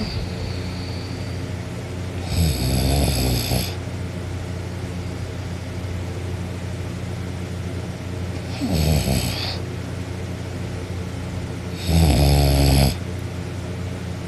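A person snoring with their mouth open: three loud, rattling snores several seconds apart, the last one the loudest.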